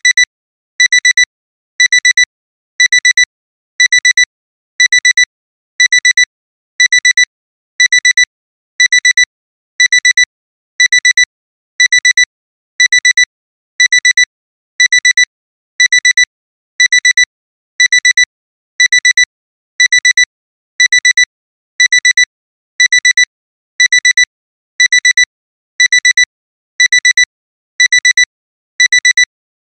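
Digital alarm-clock alarm sounding at the end of a timer: short bursts of rapid, high-pitched electronic beeps, one burst about every second, repeating without a break.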